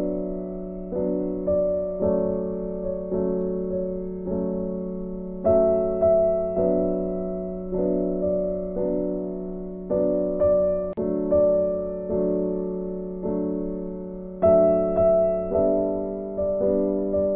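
Background piano music: a gentle melody of notes struck about once a second, each fading out before the next.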